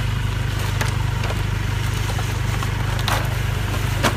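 Vehicle engine idling with a steady low hum. Over it come a few sharp knocks and clicks from an ATV being strapped down, the loudest near the end.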